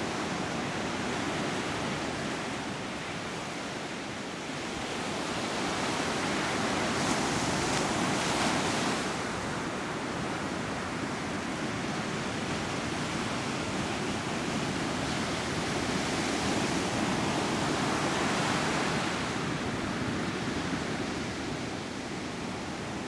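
Steady rush of sea surf, swelling and falling back twice as waves wash in, once about a third of the way in and again past two-thirds.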